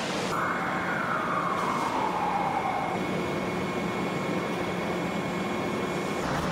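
Steel strip processing line machinery at a coil pay-off reel running, a steady industrial din with a low hum and a constant high tone. In the first three seconds a whine glides down in pitch.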